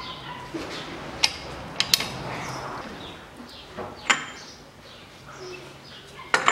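A handful of sharp metal clinks at irregular intervals from hand tools on a car's front wheel hub as the driveshaft nut is tightened, with a screwdriver wedged in the brake disc to hold it still.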